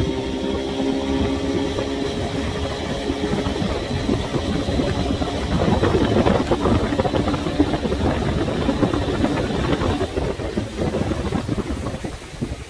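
1991 25 HP Mercury two-stroke outboard running with the boat under way but not up on plane. Its engine tone is clear for the first few seconds, then gets buried under rushing wind and water noise that is loudest in the middle.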